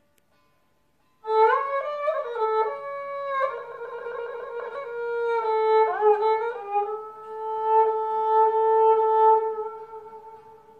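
Classical Istanbul kemençe (small bowed lyra) playing a slow melody. It comes in about a second in and moves with slides between notes into long held notes, fading away near the end.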